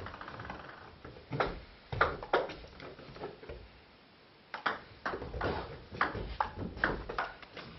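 Table tennis ball clicks: quickening bounces at the start, a few hard knocks, then after a short pause a rally of ball striking bats and table about two to three times a second.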